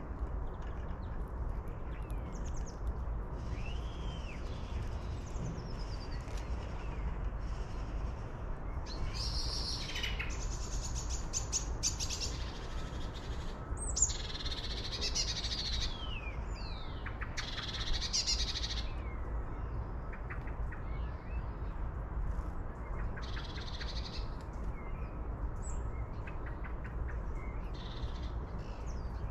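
Several wild birds chirping and calling in short, varied calls, thickest through the middle stretch, over a steady low rumble.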